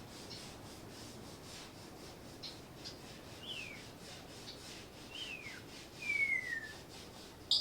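Timneh parrots giving short descending whistles, the longest and loudest about six seconds in, with brief sharp chirps in between and a loud chirp near the end.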